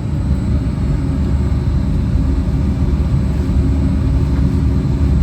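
Steady low rumble inside the front cabin of a Disneyland Mark VII monorail, with no sudden events.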